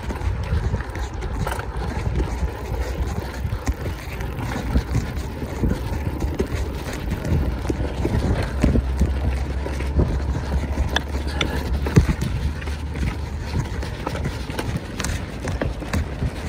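Mountain bike being ridden over rough trail: many short knocks and rattles from the bike over bumps, over a steady low wind rumble on the microphone.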